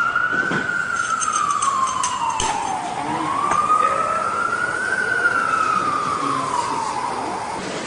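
Emergency vehicle siren wailing, its pitch slowly rising and falling twice, with a few sharp clicks in the first half.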